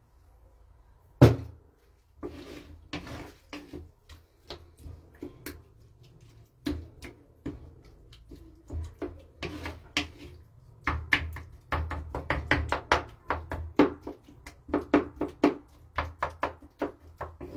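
Wooden spoon knocking and scraping against an earthenware dish while mixing food. There is one sharp knock about a second in, then scattered taps that quicken into a fast run of taps in the second half.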